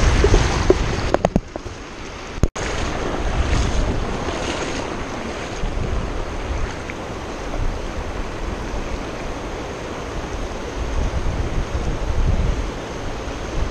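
Shallow river rapids rushing steadily, with wind on the microphone. A few sharp splashes come in the first second or so, and the sound drops out briefly about two and a half seconds in.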